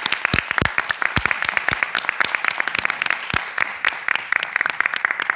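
Audience applauding: a steady patter of many hands, with a few louder claps close by in the first second or so.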